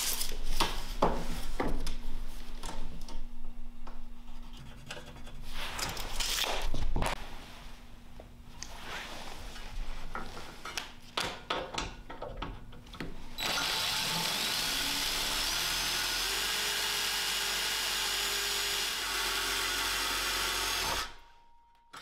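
Handling clatter and clicks of an aluminium angle rail and tape measure, then a power drill boring through the aluminium angle, running steadily with a faint rising whine for about seven seconds before stopping suddenly near the end.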